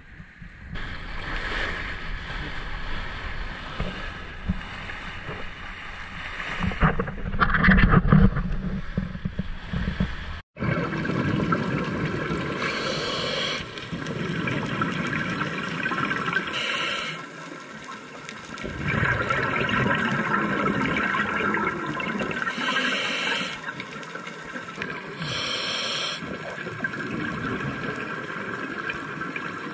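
Underwater gurgling and bubbling of a scuba diver's exhaled breath escaping from the regulator, in repeated bursts every few seconds.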